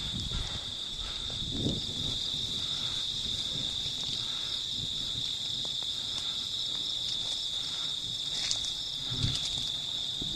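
Insects, likely crickets, trilling: a steady, unbroken high-pitched buzz, with a couple of faint rustles underneath.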